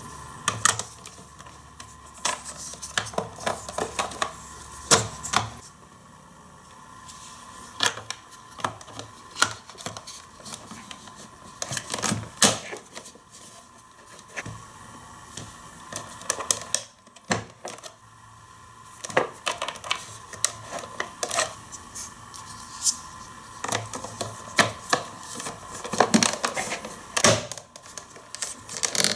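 Hard plastic parts of a Hot Wheels Race & Rinse car wash playset being handled and snapped together: irregular clicks, taps and knocks, in quick clusters with short gaps.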